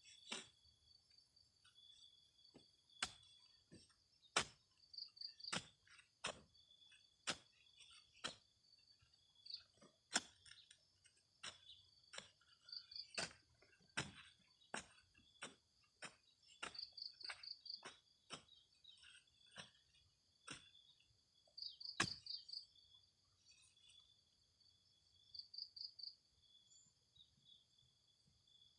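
A hoe blade chopping into dry, clumpy soil: about twenty irregular, sharp strikes that stop a few seconds before the end. Insects trill faintly and steadily underneath, with short pulsed chirps every few seconds.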